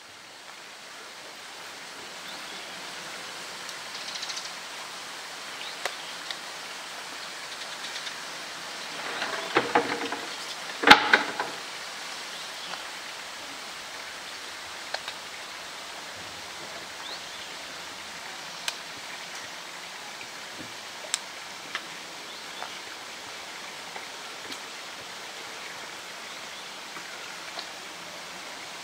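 A steady rushing noise like running water, with scattered faint clicks. A short cluster of sharp knocks comes about ten seconds in, the last one the loudest.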